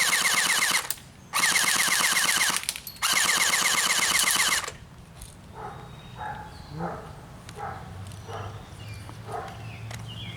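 Umarex H&K MP7 electric airsoft gun firing on full auto: three bursts of rapid shots, each about a second and a half long, the first already under way and the last ending about four and a half seconds in.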